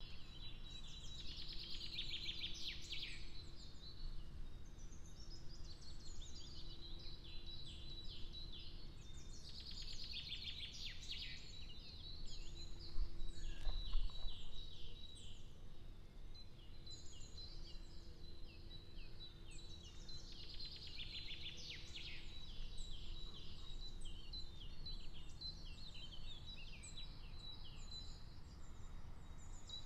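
Songbirds singing in repeated bursts of quick chirping phrases, roughly every ten seconds, over a low steady outdoor rumble that swells briefly about thirteen seconds in.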